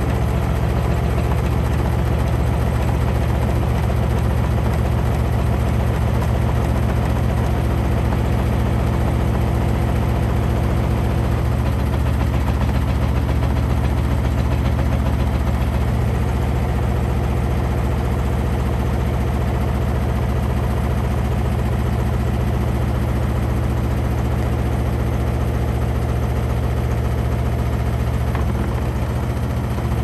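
Samsung front-loading washing machine spinning a load of wet clothes: a loud, steady hum of motor and drum with a continuous fast rattle of the vibrating cabinet.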